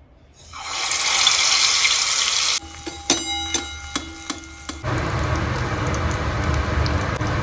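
Hot oil sizzling loudly as a batter-coated potato ball goes into a small steel pan of oil. Then come several ringing metal clinks of a slotted steel spatula against the pan. After that the oil sizzles steadily as the aloo vadas deep-fry.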